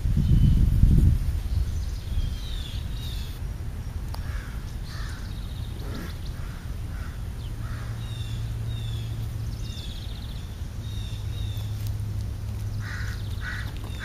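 Birds calling outdoors: short high chirps throughout, with a few harsher calls in the middle and again near the end. A loud low rumbling knock comes in the first second, and a steady low hum sets in about halfway.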